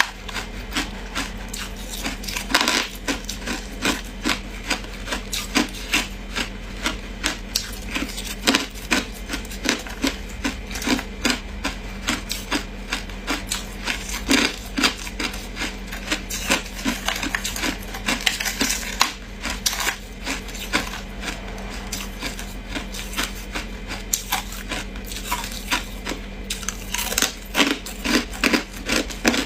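Ice being chewed close to the microphone: a continuous run of crisp, cracking crunches, often two or three a second.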